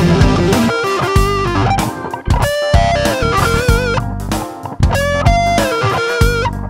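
Overdriven electric guitar playing a single-note lead solo with string bends and vibrato, first through a Marshall DSL1CR 1-watt valve mini amp and then, after a short break partway through, through a JOYO BantAmp Zombie mini amp head.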